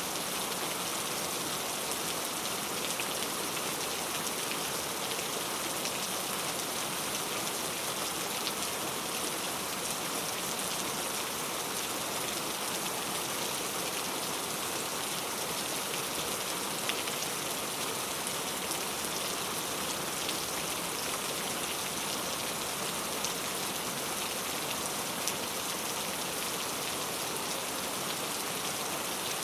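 Heavy rain falling steadily, an even hiss of countless drops, with a few louder single drop ticks standing out here and there.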